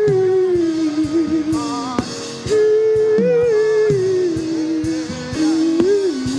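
Worship music from a band: one held lead melody that rises and falls slowly over regular drum hits and bass notes.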